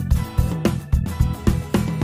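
Background music with a steady beat and plucked-string notes.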